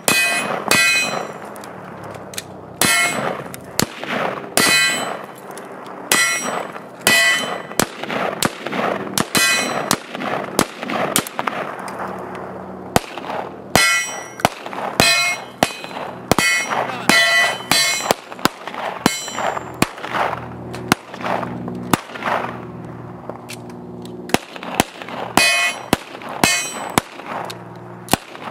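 A long string of gunshots from an AR-15 rifle and a pistol, fired in a rifle-to-pistol transition drill, irregular and often in quick pairs. Many shots are followed by the ringing clang of struck steel targets. The rifle stoppage that forces the switch is a jam.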